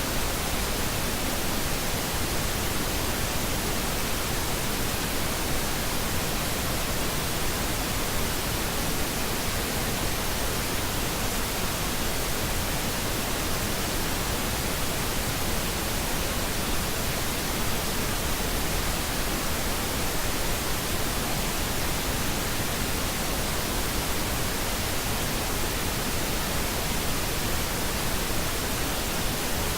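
Steady pink noise: an even hiss spread across all pitches, unchanging throughout.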